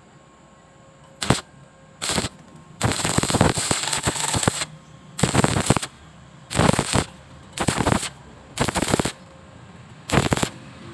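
Stick welding arc crackling in a series of short bursts with gaps between them: eight arcs, one running for nearly two seconds, the rest under a second each, as in stitch-welding thin metal with an electrode.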